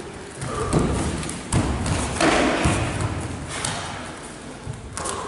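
Dull thuds and scuffs from two barefoot kenpo karate fighters sparring on foam mats, several of them over the first three seconds.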